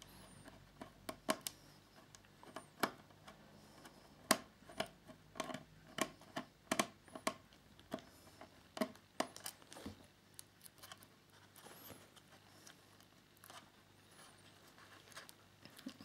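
Small precision screwdriver clicking and scraping in a stubborn screw in an ASUS Zenbook UX303LN's aluminium bottom case: a string of irregular sharp clicks, thick in the first half and thinning out later, as the screw refuses to come out.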